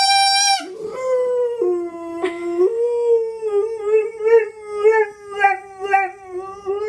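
A bassoon reed blown on its own gives a steady, buzzy squawk that stops just over half a second in. A boxer dog then howls in answer: one long howl that drops lower around two seconds in, then wavers up and down about twice a second.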